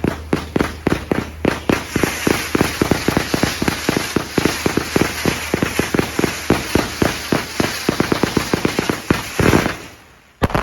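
1000-gram finale fireworks cake firing: rapid shots about five a second over the crackle of bursting shells, ending in one last big burst a little after nine seconds in, then a sharp double report at the very end.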